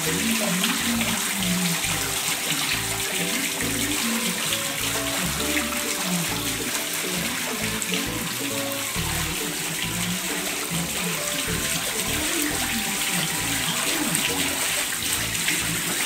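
Steady splashing of a small fountain pouring water into a turtle tank, with background music playing underneath.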